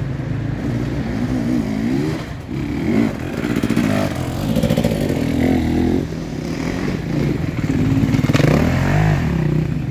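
Enduro dirt bike engines revving up and down on the throttle as two bikes come down a descent and ride past one after the other, the second pass loudest near the end.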